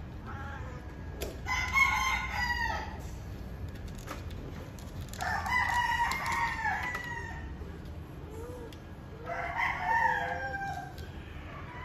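Rooster crowing three times, about four seconds apart, each crow lasting a second or two.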